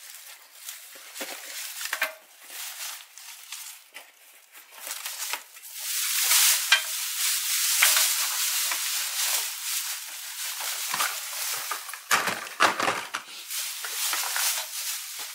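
Thin clear plastic bag crinkling and rustling as it is handled, loudest through the middle stretch, with a few short knocks of handling near the end.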